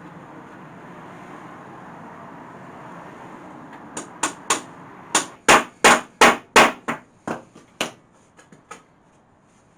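Hammer driving nails into pallet wood: a run of about a dozen sharp blows, roughly three a second, heavier in the middle and tailing off into a few lighter taps.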